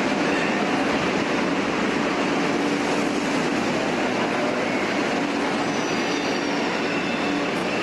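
Metro train running through an underground station: a steady, even rolling noise with a low hum, and a faint high wheel squeal partway through.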